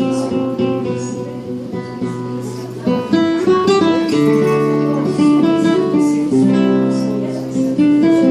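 Plucked-string instrumental music, guitar-like: picked notes over a held low bass note, the chord changing every second or two.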